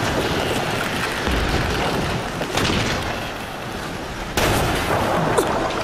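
Dramatised battle sound effects: a continuous rumble of blasts and debris, with a heavy boom about a second in and a sharper, louder blast about four and a half seconds in.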